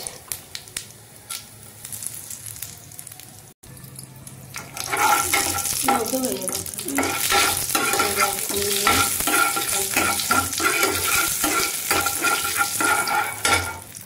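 Cumin seeds and whole spices sizzling in hot oil in a kadhai while a metal ladle stirs and scrapes across the pan. The stirring gets louder from about five seconds in.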